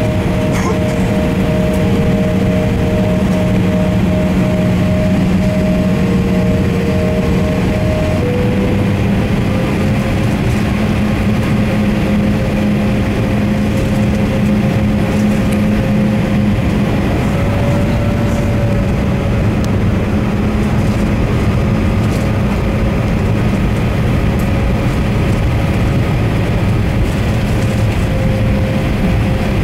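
Embraer E170's twin GE CF34-8E turbofans at taxi power, heard from inside the cabin: a steady rumble with a few steady whining tones. About eight seconds in one tone stops and another shifts slightly higher.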